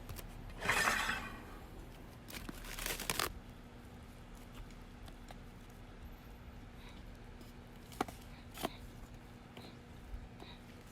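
Two short bursts of rustling, like packaging or a bag being handled, then two light clicks near the end.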